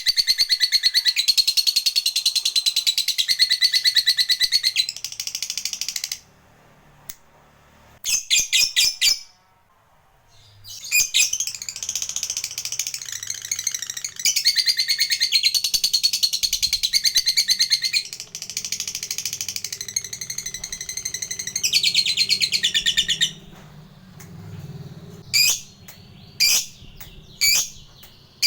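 Lovebird chattering in long, rapid trills ('ngekek panjang'): a run of about six seconds, a short burst, then a longer run of about twelve seconds, with three short chirps near the end.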